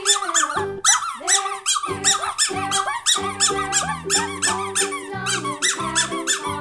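Upbeat background music with a steady bass line and fast, repeating high squeaky chirps.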